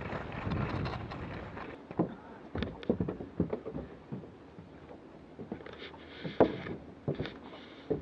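Wind rushing over a helmet-mounted camera's microphone, fading within about two seconds as the skier slows to a stop. Then scattered hard knocks and clunks of ski boots stepping on wooden decking, the loudest about six and a half seconds in.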